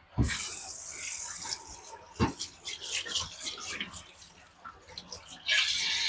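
Water running and splashing over a 400-grit whetstone as the steel swarf is rinsed off it. A burst lasts about a second and a half near the start and a shorter one comes near the end, with scattered knocks and taps between.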